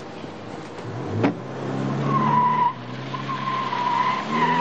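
A car door shuts about a second in. Then the BMW police saloon's engine revs as the car pulls away, and a wavering tyre squeal runs through the second half as it turns.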